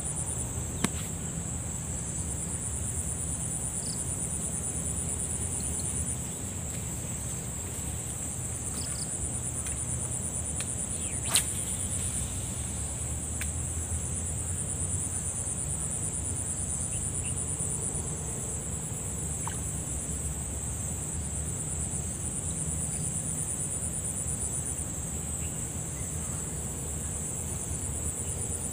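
Steady high-pitched insect chorus, slightly pulsing, over a low rumble, broken by two sharp clicks: one about a second in and one near the middle.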